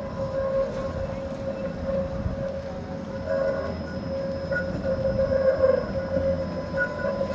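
Tatra tram set running slowly through a curve: low rumble of the wheels on the rails with a steady whining squeal.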